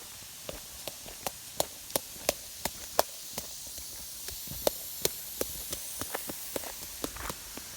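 Steady hiss of a running lawn sprinkler spraying water, with a quick run of sharp ticks, about three a second.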